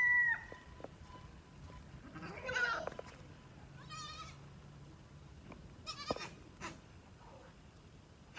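Goats bleating: separate wavering calls about two and four seconds in, and shorter calls around six seconds. The end of a rooster's crow is heard right at the start.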